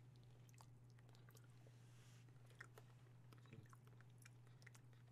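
Faint mouth sounds of a man chewing a soft chocolate truffle: scattered small wet clicks, over a steady low hum.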